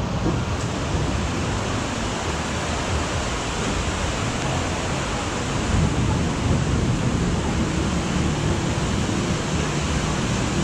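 Heavy rain falling steadily in a tropical downpour, a dense, unbroken hiss of rain.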